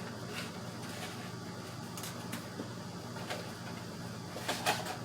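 Cardboard PC-part packaging being handled and opened: scattered light clicks and rustles, with a louder clatter near the end, over a steady low hum.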